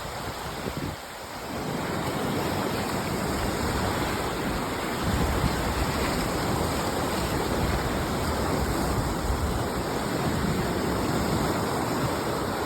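Sea surf washing steadily onto the beach, mixed with wind buffeting the microphone; the noise dips briefly about a second in.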